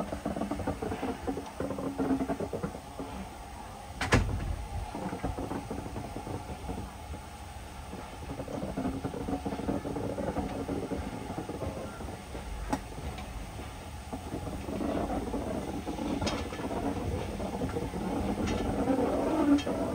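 Ride noise of a moving railway carriage heard from inside: a steady low rumble with scattered knocks and clicks, and one sharp knock about four seconds in.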